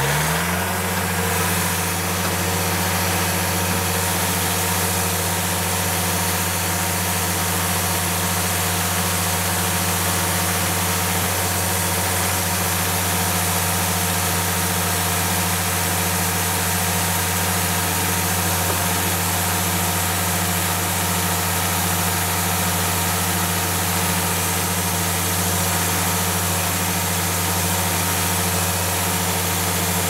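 The 49 hp Yanmar diesel engine of a Cooks AC3649 portable hydraulic sawmill running at a steady, even speed while its hydraulics work the log loader. Its pitch rises briefly at the very start, then holds constant.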